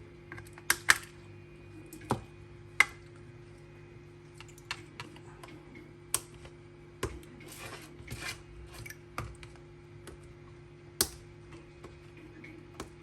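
Cutters snipping small plastic tabs out of the inside of a PowerBook battery pack case: about seven sharp snaps at uneven intervals, with softer scraping and handling of the case between them.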